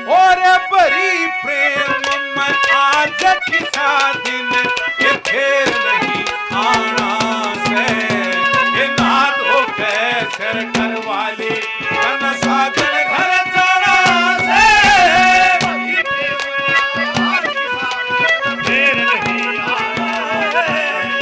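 Live Haryanvi ragni folk accompaniment: a harmonium holds a steady drone under a bending melody while hand drums beat a busy rhythm.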